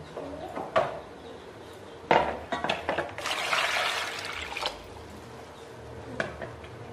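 Water poured from a plastic dipper into a plastic basin of peeled potatoes, splashing for about a second and a half starting about three seconds in. A few sharp knocks of plastic being handled come before it.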